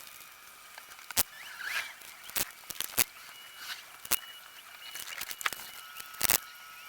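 Scattered sharp clicks and knocks, about six over several seconds, with a faint chirp about a second and a half in.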